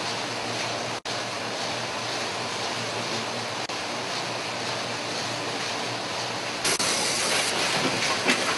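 Steady mechanical hiss and rattle of syringe-making machinery feeding plastic syringe barrels. About two-thirds of the way in it gives way to the louder, brighter clatter of an automatic syringe assembly machine, with quick clicks.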